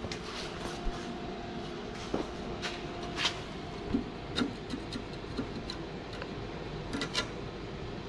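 Stick-welding electrode scratched against a thin steel lawnmower handle pipe, giving only a few short, separate crackles as the arc fails to hold. The paint on the pipe keeps the tack weld from taking.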